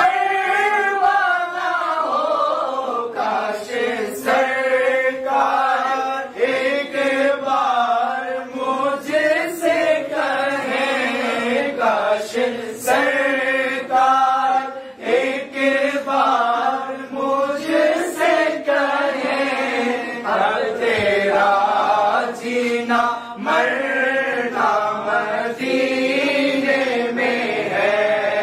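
A group of men chanting an Urdu naat together in chorus, their voices rising and falling on long, held melodic lines.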